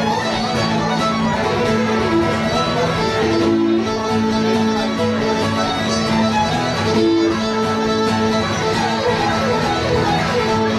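A fiddle and an acoustic guitar playing a tune together, the fiddle carrying the melody over the guitar's accompaniment.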